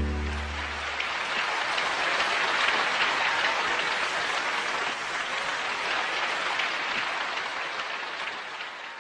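An audience applauding, heard as a dense patter of clapping, at the end of a song whose last low note dies away in the first second. The applause fades out near the end.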